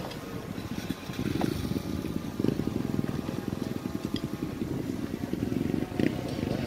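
Dirt bike engines running and revving unevenly as the bikes are worked up a steep, loose climb.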